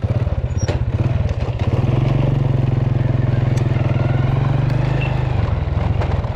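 Small motorcycle engine running steadily under way along a dirt track, its note growing stronger about two seconds in and easing off near the end.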